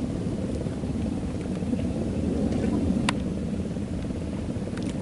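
Steady low rumble with a single sharp click about three seconds in.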